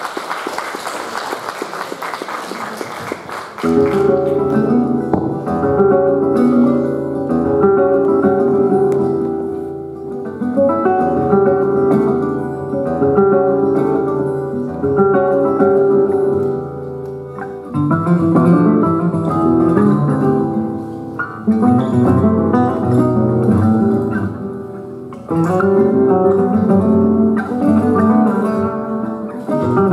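Audience applause for about the first four seconds, then flamenco-style acoustic guitar music starts and plays on.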